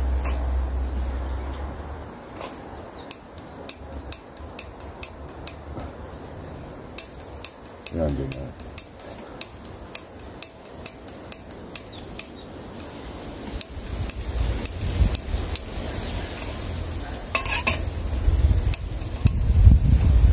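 Small metal pot of water heating on a portable gas burner, with many sharp, irregular ticks and clinks. A low rumble builds up over the second half.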